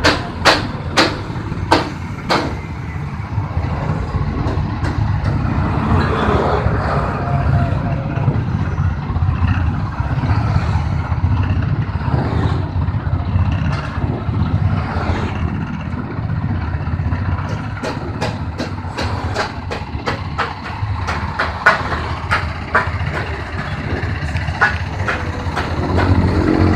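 Stainless-steel feed mixer machine running with a steady low motor hum, with sharp clicks and knocks a few times near the start and many more in the last third.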